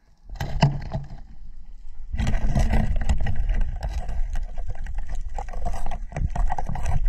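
Underwater noise picked up by a diver's camera: a muffled rush of water with crackling and knocks, louder from about two seconds in, as gloved hands grab a crab among the rocks.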